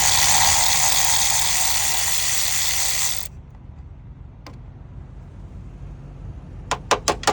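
A power ratchet runs steadily for about three seconds, backing out a bolt on the engine's timing solenoid, then stops suddenly. Near the end a hand ratchet clicks rapidly, about five clicks a second.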